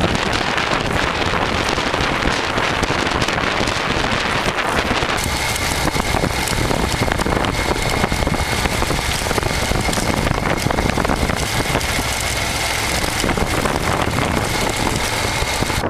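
Heavy wind rushing over the microphone, with vehicle running noise underneath. A faint steady whine comes in about a third of the way through.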